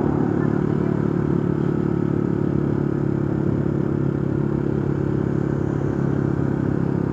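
Motorcycle engine running at a steady speed while riding, a continuous even hum.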